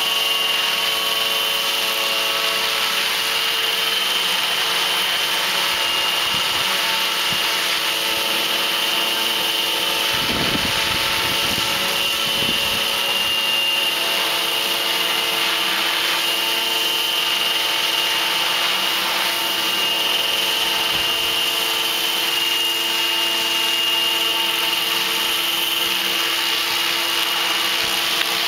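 Electric RC helicopter, a stretched T-Rex 500 in a 600-size AS350 scale fuselage, hovering: a steady high whine from the motor and drivetrain over the rush of the rotor blades, holding one pitch throughout. A few low rumbles come in about ten to thirteen seconds in.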